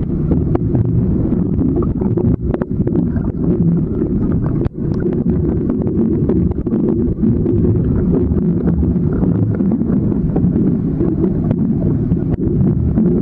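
Loud, muffled rumble of churning waterfall water picked up inside an underwater camera's waterproof housing, with scattered sharp clicks and knocks against the housing.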